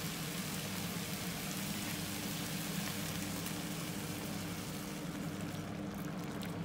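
Diced chicken breast sizzling in a frying pan, with a steady low hum underneath. The sizzle softens near the end as curry sauce is poured in over the chicken.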